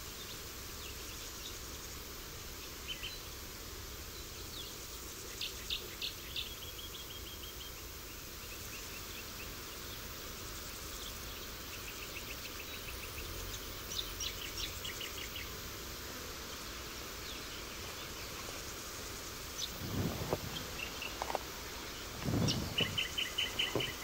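Birds chirping and trilling now and then, short runs of quick notes, over a steady outdoor hiss of insects and breeze. A few low soft thuds come near the end.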